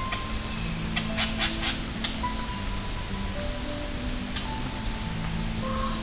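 A steady, high-pitched insect chorus under soft background music of slow, held notes.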